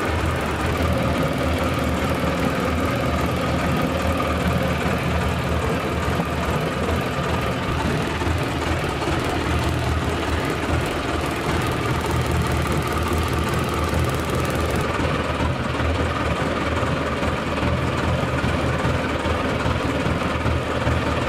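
Small fishing boat's engine running steadily, a constant low rumble.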